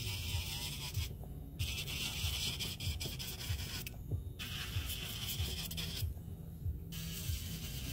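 Electric nail file with a fine sanding band on a mandrel lightly etching the surface of a natural nail, a soft scratchy sanding hiss that comes in passes of about two seconds with short breaks between.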